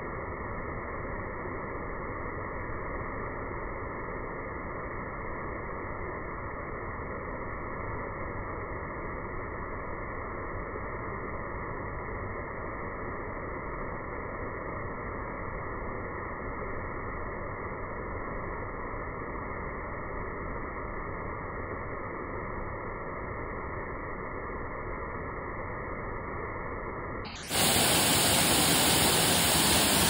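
Steady rush of a waterfall plunging into a pool, slowed down with the slow-motion footage so it sounds deep and muffled. About 27 seconds in it switches to the louder, brighter rush of the falls at normal speed.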